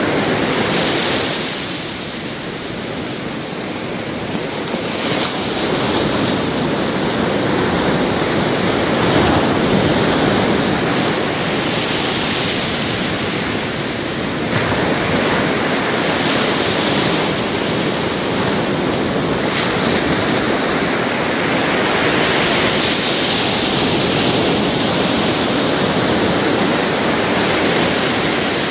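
Ocean surf breaking and washing up the beach: a continuous rush of water that eases a couple of seconds in, then swells again with new breaking waves about five seconds in, about halfway and near 20 seconds.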